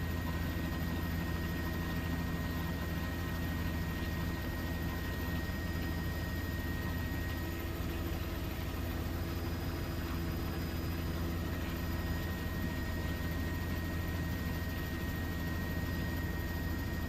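Aircraft engine drone, steady and unchanging, a deep hum with a thin high whine above it.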